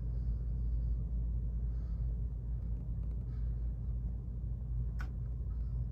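Steady low hum with no speech, broken by a single short click about five seconds in.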